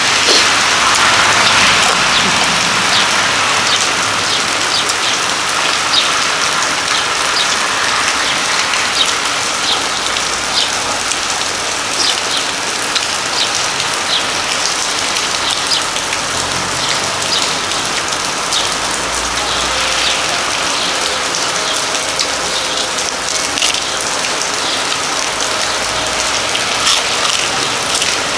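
Steady rain falling, with many small drop ticks scattered throughout.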